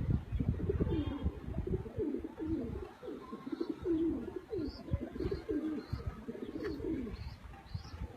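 Several pigeons cooing over one another. Faint, short, high chirps from a small bird repeat through the second half.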